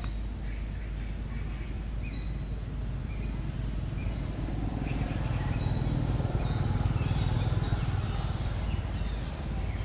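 Outdoor ambience: a bird repeating short, high, falling chirps about once a second, over a low rumble that grows louder in the middle and eases off near the end.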